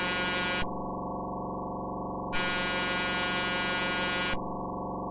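Electronic emergency-alert alarm: a harsh, buzzy alarm tone that switches regularly, about every two seconds, between a bright, piercing buzz and a duller, muffled one.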